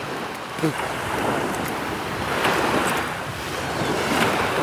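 Sea waves washing up onto a sandy beach, swelling and easing, with wind buffeting the microphone.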